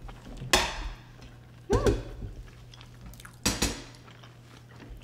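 Close-miked chewing and wet eating sounds from a mouthful of chewy rice cakes in creamy sauce, coming as three loud bursts, about half a second, two seconds and three and a half seconds in. The middle burst carries a short hummed "mm".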